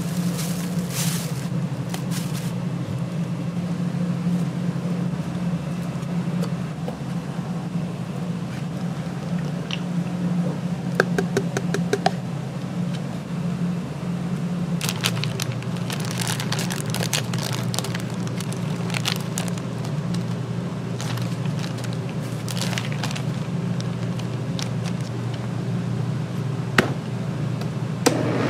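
A steady low mechanical hum with scattered clicks, knocks and scrapes over it. There is a quick run of small ticks about eleven seconds in, and the clicking comes more often in the second half.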